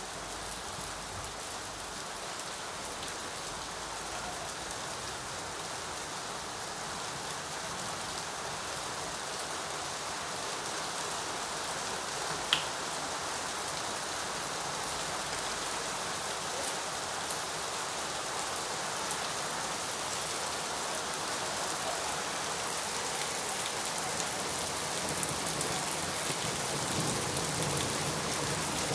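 Steady rain falling, an even hiss that grows gradually a little louder, with a single sharp tick about twelve seconds in.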